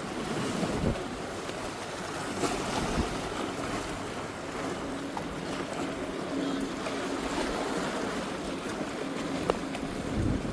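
Sea waves washing against jetty rocks, with wind buffeting the microphone. A faint steady hum runs through the middle, and there are a few small clicks.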